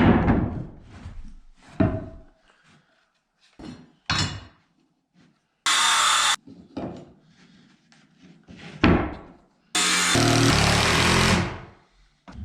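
Carpentry work on lumber: several hard knocks on wood, each ringing out briefly, with two short power-tool bursts, one under a second long midway and one about two seconds long near the end.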